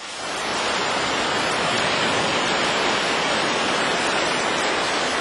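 Sea surf washing onto a beach: an even rush of noise that starts abruptly and then holds steady.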